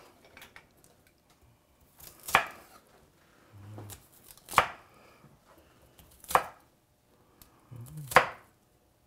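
Chef's knife chopping asparagus on a wooden cutting board: four sharp cuts about two seconds apart, each ending in the blade striking the board.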